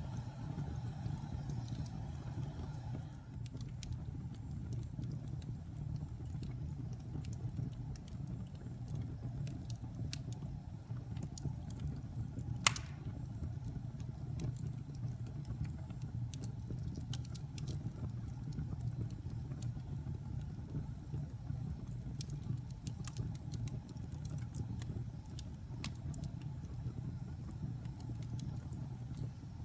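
Wood fire crackling: a steady low rumble of burning with scattered sharp pops and snaps, and one much louder pop a little before halfway through.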